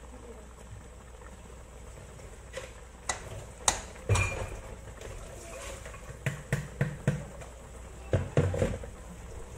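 A spatula knocking and scraping against a nonstick wok while stirring tofu simmering in coconut milk: a string of irregular knocks that starts about two and a half seconds in, loudest around four seconds, over a steady low hum.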